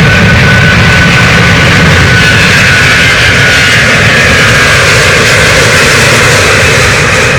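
Jet airliner engines running loud and steady, with a thin high whine over the roar.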